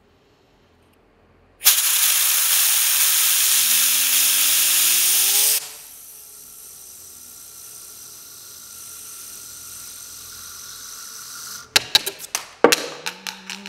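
Compressed-air blow gun blasting a homemade fidget spinner disc with a loud hiss for about four seconds, the spinner's whir rising steadily in pitch as it spins up. After the air cuts off, a fainter steady whir carries on, then a quick clatter of sharp knocks near the end.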